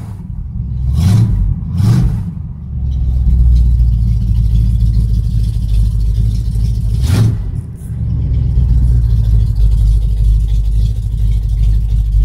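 1972 GMC truck's engine running, heard from inside the cab, with a few short surges of revving about one and two seconds in and again around seven seconds.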